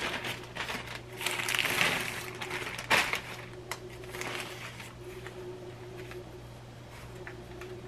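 Plastic wrapping on a package of frozen pie crusts crinkling and rustling in several short bursts as it is handled, busiest in the first half, over a steady low hum.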